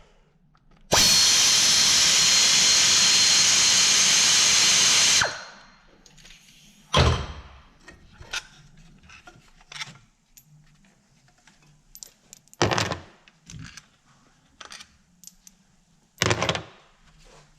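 A power tool runs loud and steady for about four seconds, then stops. Metal clinks and knocks follow a few times as parts are handled on the engine during valve-cover removal.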